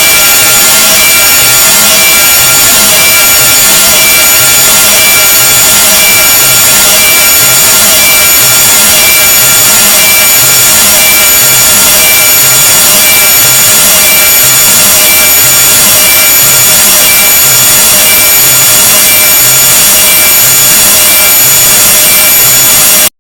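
A deliberately unpleasant noise sound effect played very loud: a dense wall of hiss with several steady piercing tones on top and a low pulsing throb beneath. It cuts off suddenly at the end.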